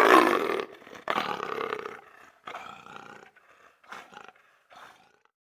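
Leopard calling: two loud roars about a second apart, then three shorter, fainter calls that die away.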